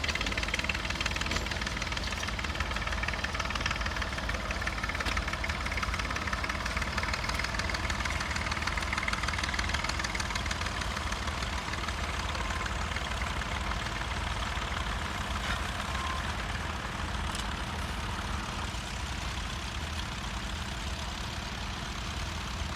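Vintage tractor engine running steadily, with a fast, even firing beat.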